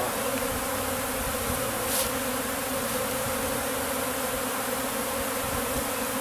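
Honeybee swarm buzzing, a steady hum of many bees as they crowd into a hive box. A brief click about two seconds in.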